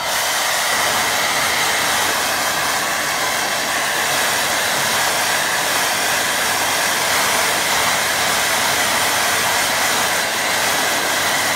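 Handheld hair dryer running steadily, blowing hot air over wet watercolour paper to dry the wash; a faint high whine sits in the rush of air.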